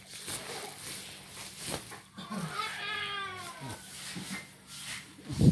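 One long, drawn-out animal call, about a second and a half, starting about two seconds in, and a loud low thump just before the end.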